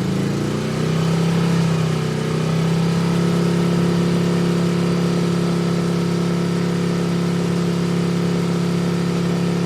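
Motorcycle engine running: its note shifts up briefly about a second in as the throttle is opened, then holds steady.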